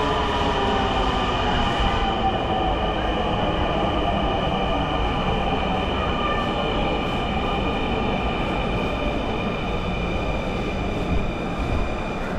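Electric metro train at the platform: a set of whining tones falling in pitch over the first couple of seconds, then a steady high whine over a low rumble.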